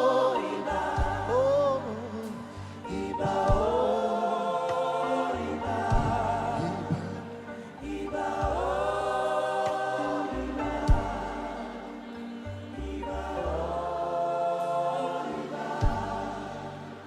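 Gospel choir singing long, held phrases in a worship song, with steady low instrumental notes and occasional sharp beats underneath.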